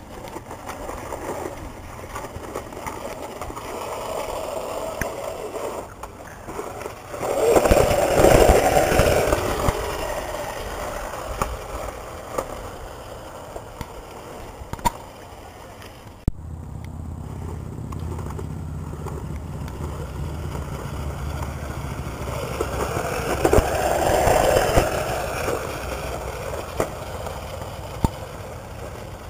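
Razor electric scooter riding over a rough dirt track, its small wheels rattling over the bumps. The noise swells twice, about eight seconds in and again near twenty-four seconds, as the scooter comes close.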